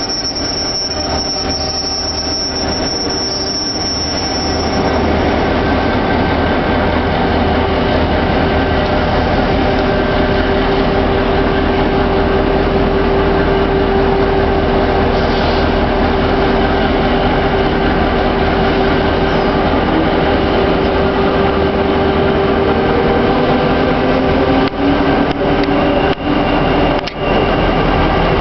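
Queensland Rail diesel-electric locomotive running as it moves slowly past the platform. Its engine drone grows louder about four seconds in, with a steady whine held over it through the middle.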